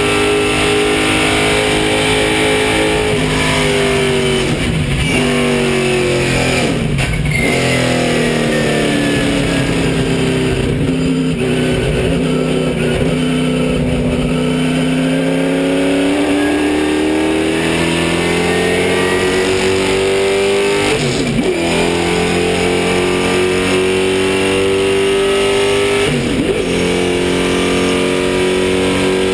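Race car engine heard from inside the cockpit under hard use. The note falls in steps as the car slows from the straight, runs low for a while, then climbs again under acceleration with two brief breaks near the end, the gear changes, before holding high and steady.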